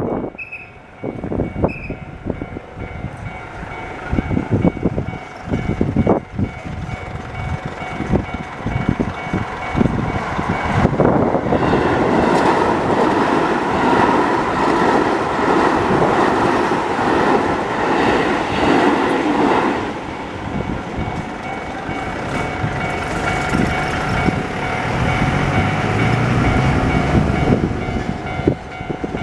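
Keio Line electric train passing over a level crossing, wheels clattering over the rail joints, loudest from about ten seconds in. The crossing's warning bell rings steadily underneath.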